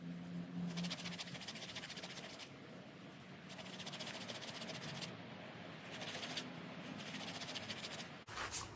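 A paper towel scrubbed back and forth over a small hard antler needle case, in bursts of quick rubbing a second or two long with short pauses between. A short sharp knock comes near the end.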